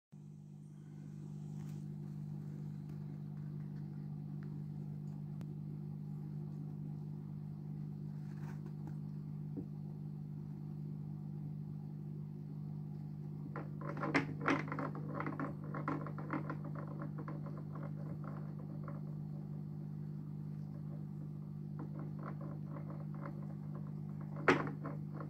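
Steady low hum of aquarium equipment, with clusters of clicks and knocks about halfway through and again near the end, one sharp knock among them: a yellow-bellied slider turtle knocking a stone against the rocks and glass of its tank.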